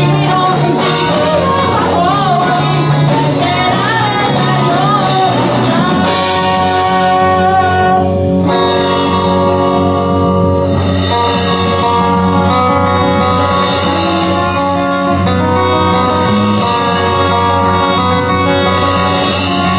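Live rock band playing through the hall's amplification: a singer over electric guitar, bass and drums for about the first six seconds, then the vocal stops and the band carries on with an instrumental passage of long held chords.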